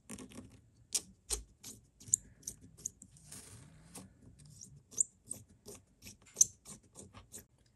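Hand pin vise drilling out a hole in a small 3D-printed plastic steering knuckle, opening it for a 1 mm connecting rod: a run of faint, irregular small clicks and scrapes as the bit is twisted, with a short scratchy stretch about three seconds in.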